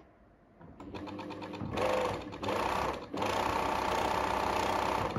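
Pfaff 1229 electric sewing machine, freshly cleaned and oiled, running. It starts slowly with separate stitch ticks about a second in, then runs fast in three bursts with short pauses between them, and stops near the end.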